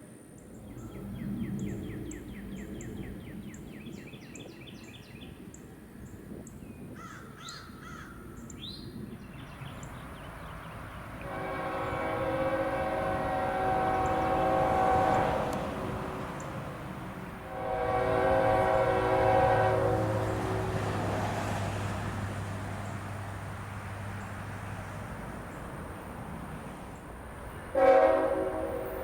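Freight locomotive's multi-chime air horn sounding two long blasts and then a short one, the opening of the grade-crossing signal, with a low diesel rumble under the second blast. Birds chirp before the horn starts.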